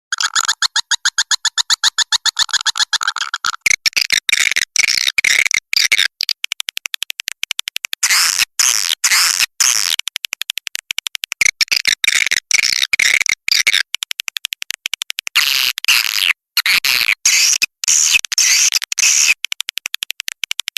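Swiftlet calls played as a farming lure sound: a fast rattling trill of even clicks for the first three seconds or so, then dense, high-pitched chirping chatter broken by brief gaps.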